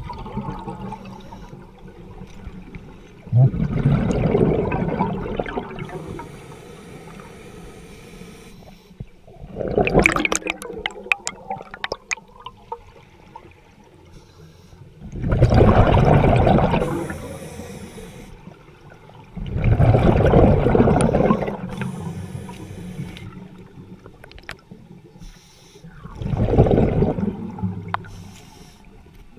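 A scuba diver's exhaled air bubbling out of the regulator, heard underwater: five loud bubbling surges a few seconds apart, in step with the diver's breathing, the second with a spray of sharp clicks.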